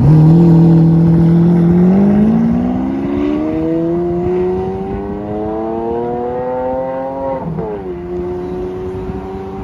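Lamborghini Aventador V12 accelerating hard away, its engine note climbing steadily for about seven seconds. The note then drops sharply at an upshift and fades as the car pulls into the distance.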